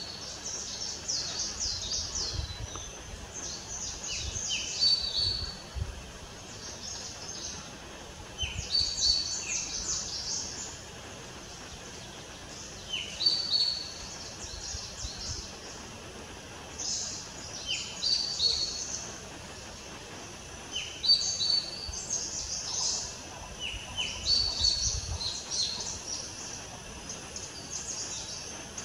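Birds calling: clusters of short, high-pitched chirping notes recur every few seconds, some with lower down-slurred notes, over faint low rumbles.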